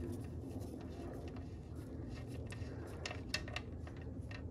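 Faint metallic clicks and taps of a wrench loosening an engine oil pan's drain plug, a handful of them bunched past the middle and one near the end, over a steady low hum.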